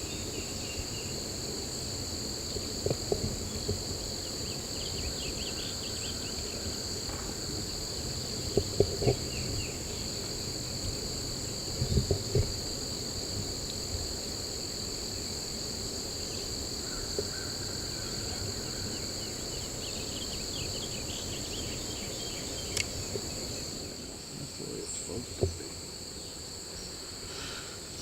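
Steady, high-pitched insect drone, with a few brief low knocks at intervals.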